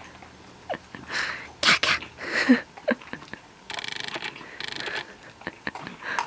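A dachshund and a cat eating dry kibble from ceramic bowls in a stand: irregular crunching and clicks of kibble against the bowls, with a fast rattling stretch a little past the middle.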